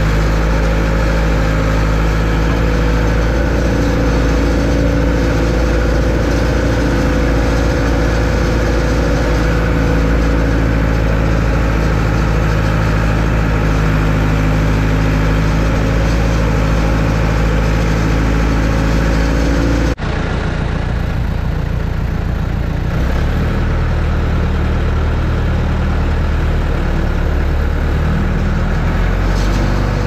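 Bobcat M970 skid-steer loader's engine running steadily, heard from inside the open cab while the machine carries a round hay bale. About two-thirds of the way through there is a sudden break, after which the engine note changes.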